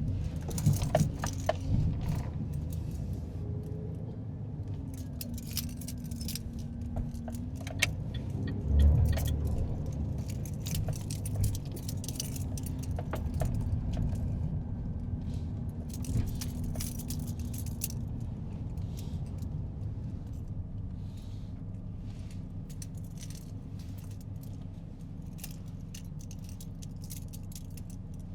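Inside a moving car: a steady low engine and road rumble, with light clicks and rattles scattered throughout and one heavier bump about nine seconds in.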